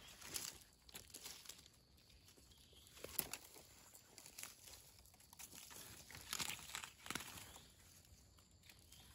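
Faint rustling and crackling of dry leaf litter and twigs as gloved hands dig wild mushrooms out of the forest floor, with a few sharper crackles, most of them about two-thirds of the way in.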